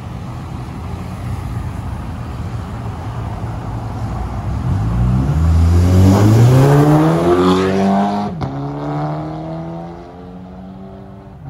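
Audi TT with an aftermarket air intake pulling away and accelerating past, the engine pitch climbing hard. About eight seconds in the pitch drops at a gear change, then climbs again as the car drives off and fades.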